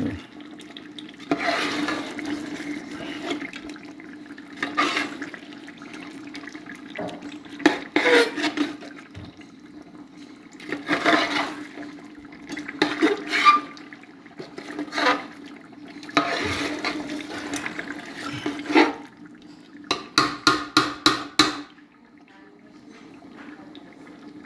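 A spoon stirring chunks of meat in thick curry gravy in a large aluminium pot: wet scraping and sloshing in a series of separate strokes over a steady low hum. Near the end a quick run of about six sharp taps.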